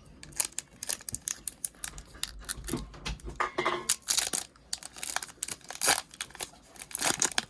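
Plastic blister packaging being torn and crinkled open by hand: irregular crackling and tearing, a stiff corner resisting.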